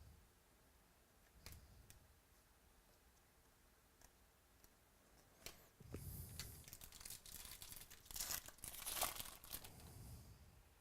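Foil trading-card pack wrapper being torn open and crinkled, a rustling stretch of about four seconds starting some six seconds in, after a few faint clicks.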